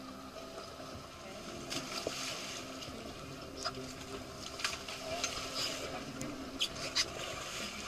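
Sea water washing against a fishing boat's hull, with a scatter of sharp splashes and knocks as a hooked mahi-mahi is brought thrashing alongside.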